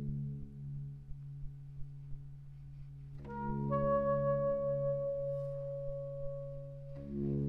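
Saxophone quartet (soprano, alto, tenor and baritone) playing slow sustained chords over a long low held note. About three seconds in the upper voices re-enter with a high held note that lasts until about seven seconds, when the chord changes.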